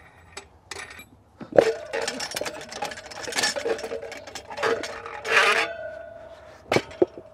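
Metal clinks and knocks as a motorcycle wheel is unfastened from a steel manual tire-changer stand's centre spindle and lifted off it, with a sharp knock about a second and a half in followed by a ringing tone that hangs on for several seconds. Scraping and rustling of the rubber tire and metal follow, and two more sharp knocks come near the end.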